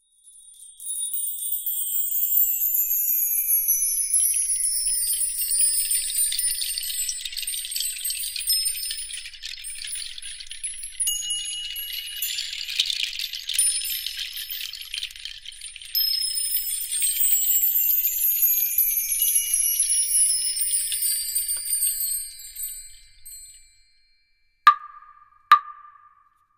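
Shimmering high chimes sweeping down in pitch in two long waves, with a denser stretch of ringing between them, fading out over the last few seconds. Near the end come two short, sharp knocks with a wooden ring.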